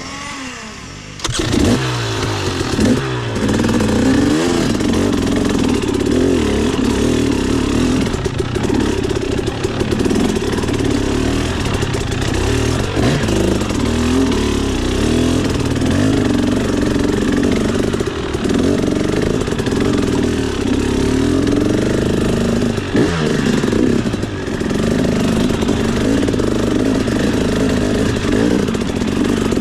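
KTM 300 EXC two-stroke dirt bike engine, fitted with a Pro Circuit exhaust, revving in repeated surges and dips as the throttle is worked. The engine gets suddenly louder a little over a second in.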